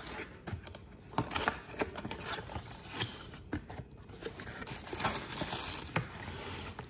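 Cardboard packaging being handled and its flaps opened, with scattered taps and scrapes, then a clear plastic bag crinkling as it is lifted out of the box.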